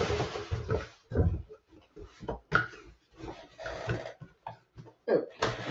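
Packaging being handled: a cardboard boot box and its paper rustling, with several soft knocks. A longer rustle comes first, then short scattered rustles and bumps.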